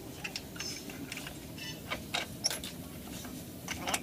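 Scattered light metallic clicks and clinks from a Bedford truck's front brake backing plate, with its brake shoes and return springs, as it is handled and fitted onto the front wheel spindle.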